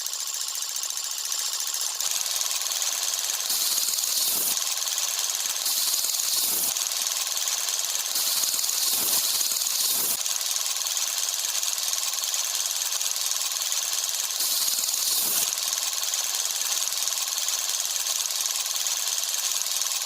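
Tractor-mounted borewell drilling rig running: a steady mechanical din with a high hiss, swelling into louder bursts of hiss four times.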